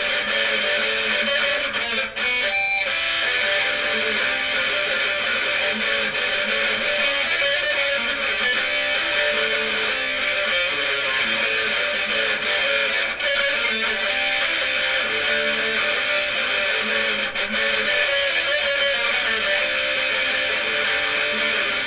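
Electric guitar played through a Marshall 5210 solid-state amplifier, strummed steadily with little bass.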